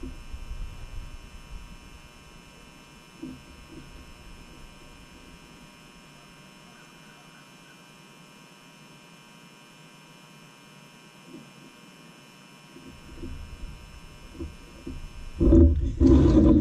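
Steady electrical hum with several thin high tones while liquid soft plastic is poured from a glass measuring cup into a swimbait mold. About a second before the end, loud knocks as the glass measuring cup is set down on the table.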